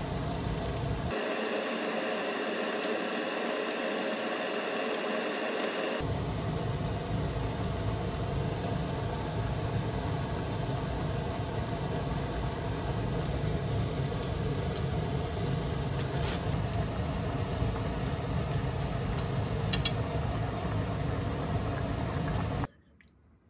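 Dumpling soup boiling hard in a small saucepan on an induction hob: a steady bubbling noise with a few faint clicks and pops. The sound changes at two cuts early on and stops abruptly just before the end.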